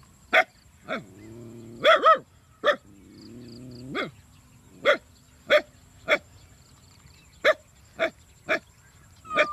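Repeated short, sharp animal calls like barks, about a dozen spaced half a second to a second apart, with a faint low hum underneath twice in the first four seconds.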